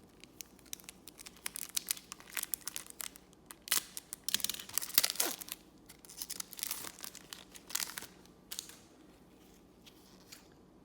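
Foil trading card pack wrapper being torn open and crinkled by hand: a run of sharp crackles, loudest about four to five seconds in, dying away near the end.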